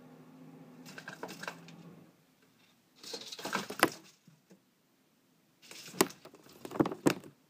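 Brown basilisk moving about in a terrarium: three bursts of crackling, clicking rustles with a few sharp clicks, over a low steady hum that stops about two seconds in.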